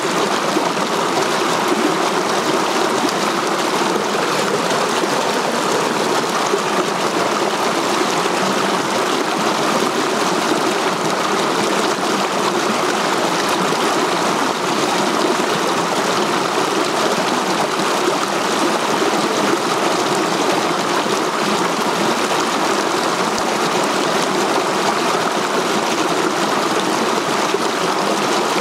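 Small mountain river rushing over boulders in low cascades: a steady, even rush of water.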